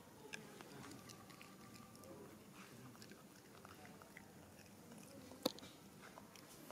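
Faint, scattered mouth clicks and smacking from a pig-tailed macaque close to the microphone, with one sharp tap about five and a half seconds in.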